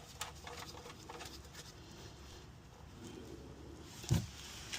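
Faint small clicks and scrapes of the oil drain plug being handled and started into the oil pan by hand, with a brief louder low sound about four seconds in.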